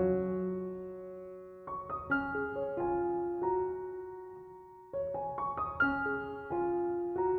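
Slow, gentle solo piano background music: phrases of a few notes at a time, each left to ring and die away.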